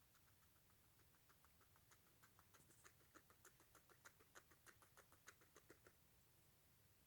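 Faint, quick clicking from a guinea pig, several ticks a second, starting about a second in and stopping near the end.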